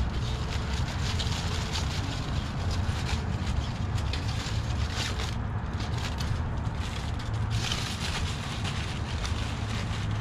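Aluminium foil crinkling and rustling as it is pulled open and peeled back, stopping briefly twice around the middle; a steady low rumble runs underneath.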